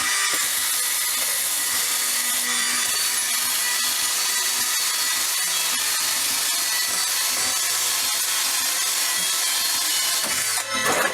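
An abrasive power tool running steadily against a workpiece: a continuous hiss with a faint whine, briefly interrupted about ten and a half seconds in.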